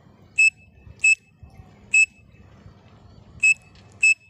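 Pen cap blown as a whistle between cupped hands, imitating a grey francolin (teetar) call: five short, sharp, high whistles at one steady pitch, with a longer pause in the middle.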